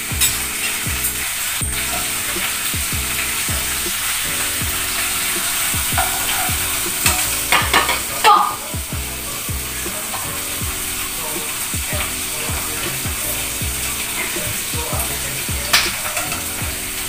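Food frying in a pan with a steady sizzle, with a few sharper clinks or scrapes about seven to eight seconds in and again near the end.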